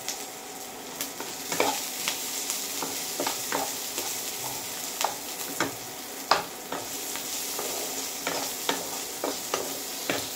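Onion, garlic and ginger frying in mustard oil in a kadai, sizzling steadily, while a wooden spatula stirs them and knocks and scrapes against the pan in irregular strokes.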